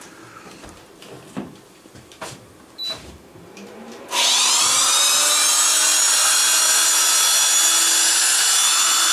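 Corded electric drill switched on after a few faint clicks, about four seconds in. Its motor whines up to speed within about a second, then runs steadily at full speed.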